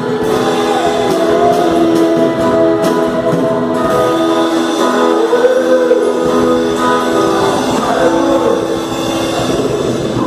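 Gospel worship music: voices singing long held notes over instrumental accompaniment.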